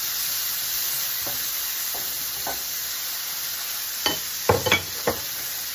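Diced onion sizzling in oil in a stainless steel sauté pan while being stirred with a wooden spoon. A few light knocks of the spoon against the pan, with a louder cluster of knocks about four seconds in.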